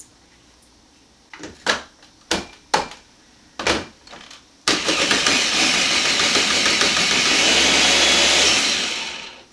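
A few sharp knocks and clicks as a food processor's lid is fitted, then its motor runs for about four seconds, chopping cucumber into fine bits, and winds down near the end.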